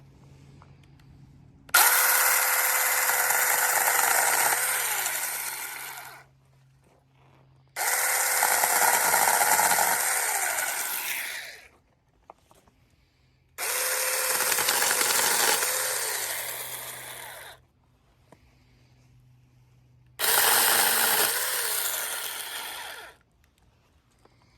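Samyoung 26 V cordless 4-inch mini chainsaw running in four bursts of a few seconds each. Each burst cuts in abruptly, then fades as it winds down. The electric motor's whine dips in pitch briefly in each burst, as if bogging under load.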